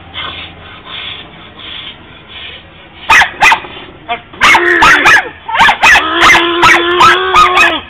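A small dog barking: a few sharp barks about three seconds in, then a rapid run of barks through the second half.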